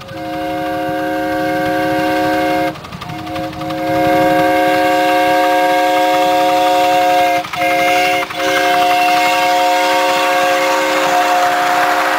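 Miniature steam locomotive's whistle blowing a chord of several notes at once, in long blasts with a few brief breaks.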